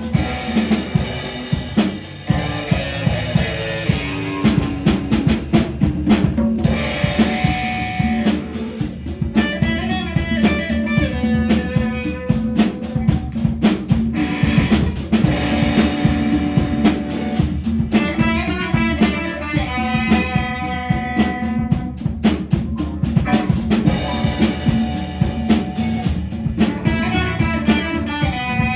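Band playing an instrumental rock passage: a drum kit with snare and bass drum under electric guitar lines.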